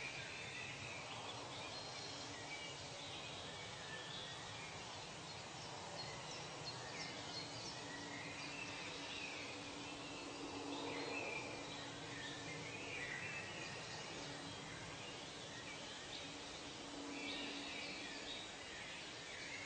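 Nature ambience: scattered short bird chirps and calls over a steady, faint background hiss.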